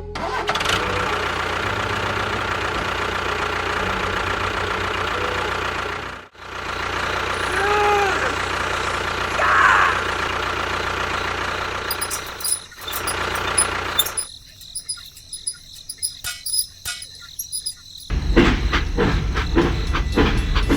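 A small motor running with a steady hum, broken by a couple of abrupt cuts. In the second half come scattered sharp clicks and rattles, and a louder low rumble near the end.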